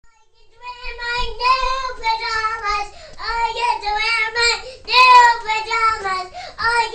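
A young girl singing in a high voice, with long held notes in phrases separated by short breaths, starting just under a second in.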